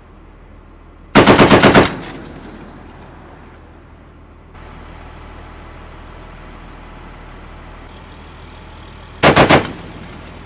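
Machine gun on a vehicle's remote weapon station firing two short bursts: about seven rapid rounds a little after one second in, ringing out briefly, then about four rounds near the end.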